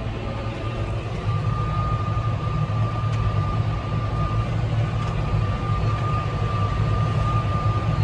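Steady running of a Fendt Vario tractor pulling a Krone round baler, heard inside the cab: a low engine and driveline hum with a constant high whine over it.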